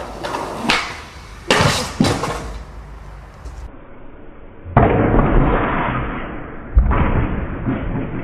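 Skateboard slam on concrete stairs: sharp knocks and clatter of the board, then heavy impacts of the board and the skater's body hitting the concrete, the loudest about five and seven seconds in.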